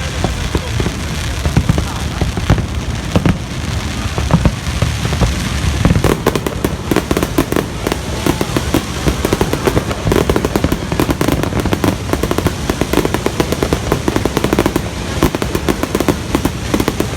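Fireworks going off in a display, with many rapid crackling pops, densest from about six seconds in.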